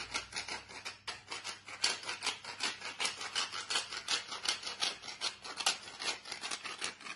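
Wooden hand pepper mill grinding peppercorns: a quick, rasping crackle of the grinder, several clicks a second as it is twisted back and forth.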